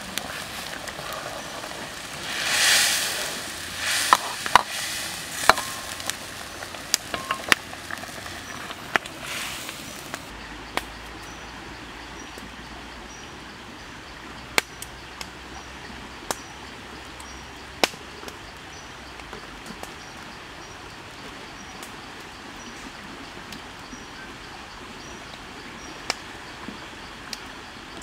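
Curry simmering and sizzling in a steel wok over a wood fire, with sharp clicks and taps; a louder rush about three seconds in. After about ten seconds the sizzling drops away, leaving a quieter background with only occasional clicks.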